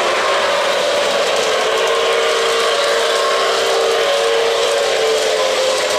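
O-gauge model trains running on three-rail track, their wheels and motors making a steady rolling din. A sustained tone holds from about two seconds in until near the end.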